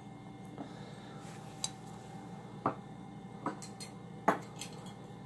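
Small cast-metal toy soldiers clicking and knocking against the wooden tabletop and against each other as they are set down and picked up: a handful of light, separate knocks about a second apart.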